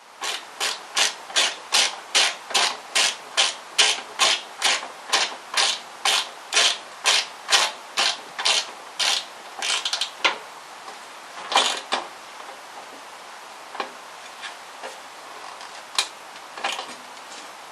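Hand socket ratchet clicking in a quick, even run of strokes, about two and a half a second, tightening the nut that holds a teardrop mount to the front panel. The clicking stops about ten seconds in, leaving a few separate clicks and light knocks.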